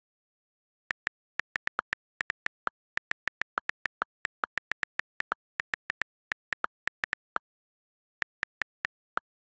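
iPad on-screen keyboard key clicks from quick typing, in an uneven run of about three to four clicks a second. A few of the clicks are lower-pitched than the rest. The clicks pause for under a second near the end, then a few more follow.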